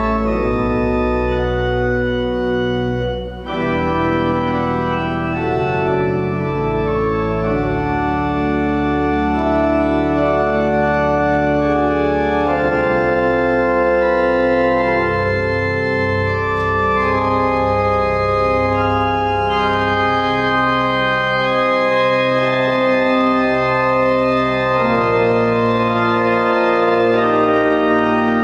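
Church organ playing sustained chords that change every second or two, over a low bass line, with a brief break between phrases about three seconds in.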